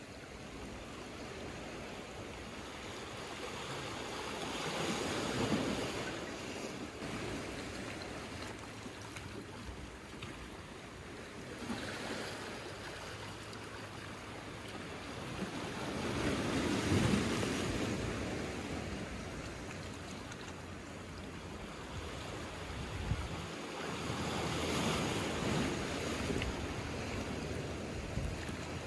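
Small ocean waves washing in among rocks and over a cobble beach. The surf swells and falls back about four times, the biggest wash a little past the middle.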